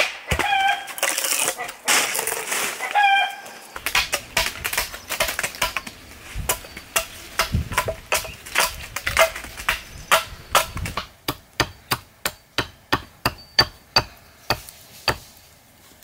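Axe and hatchet blows into wood, a long run of sharp chopping knocks that come quicker toward the end. Chickens cluck a few times in the first few seconds.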